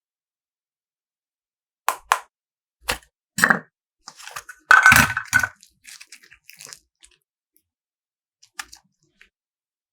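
Crunchy slime being pressed and broken up: a few sharp clicks, then a louder crackling crunch about five seconds in, followed by scattered small crackles and a lone tick near the end.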